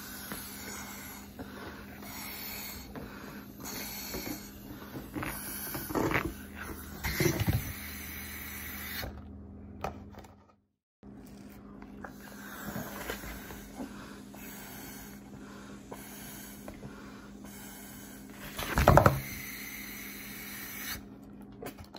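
Breathy puffs of someone blowing up a balloon through a drinking straw, with rustling and thumps from handling the paper plate and a louder handling noise near the end. A steady low hum sits underneath.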